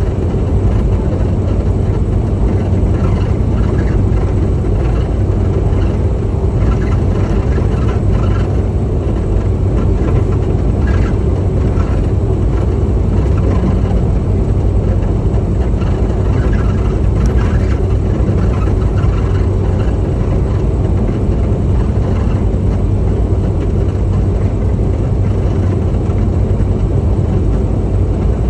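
Semi truck driving at a steady highway speed: an even low engine drone mixed with tyre and road noise.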